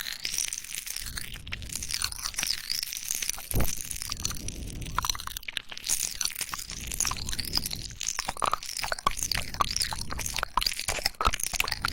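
Close-miked mouth sounds with popping candy crackling: many small irregular pops and clicks, with one sharper click about three and a half seconds in, over wet mouth and chewing movements.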